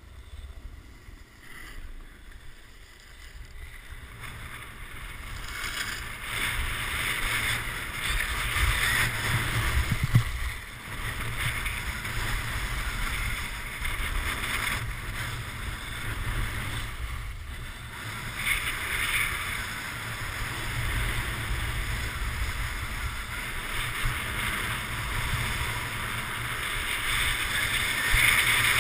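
Wind buffeting the GoPro's microphone and the hiss of edges scraping over packed snow during a downhill run. It is quieter at first and grows louder about five seconds in, once the riding picks up speed.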